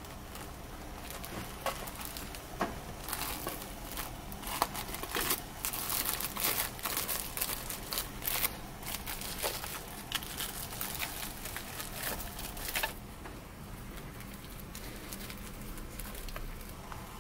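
Plastic cling film crinkling in irregular crackles as it is lifted with zucchini ribbons and pressed into a film-lined loaf pan. It starts a second or two in and stops about four seconds before the end.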